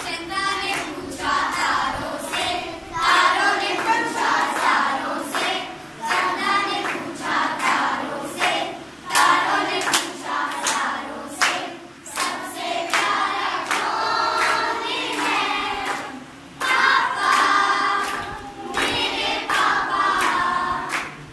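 A group of children and adults singing a song together, with hands clapping along in a steady rhythm.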